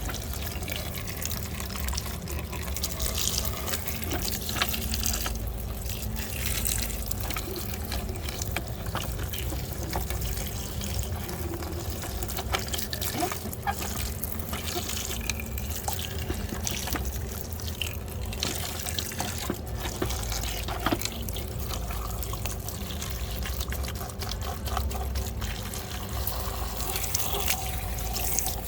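Running water splashing as muddy toys are washed, with scattered light clicks and knocks throughout.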